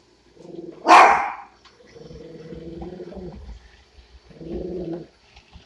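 A dachshund barking and growling: one sharp bark about a second in, followed by longer, lower growls.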